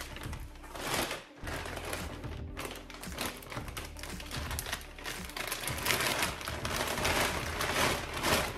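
Clear plastic bag wrapping crinkling and rustling as a boxed headlight assembly is lifted and handled, with scattered light crackles and soft bumps against the cardboard box.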